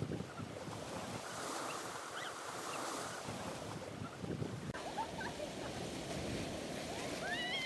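Waves washing on the shore as a steady hiss of surf. Near the end a high voice-like call rises in pitch and then holds.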